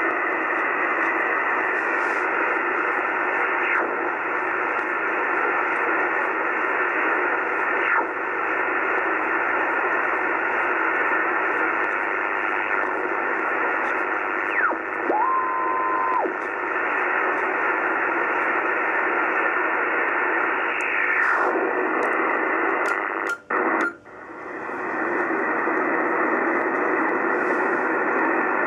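Kenwood TS-50 HF transceiver's receive audio in SSB mode as the dial is tuned across the 80 m and 20 m amateur bands: steady band hiss and static with several falling heterodyne whistles as signals are tuned past. There is a short steady tone about halfway through, and the audio cuts out twice briefly about three-quarters of the way in.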